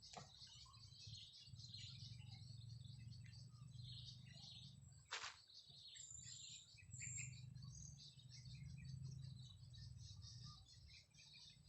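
Faint bird chirps and calls scattered over a low, steady rumble, with one sharp click about five seconds in.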